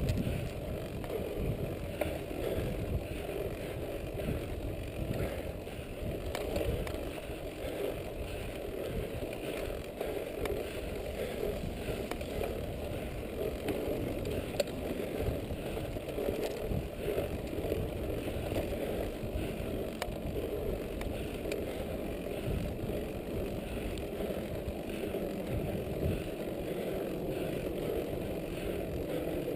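Mountain bike riding along a dirt trail: a steady rumble of tyres on the ground and rattling from the bike, with a few sharp clicks.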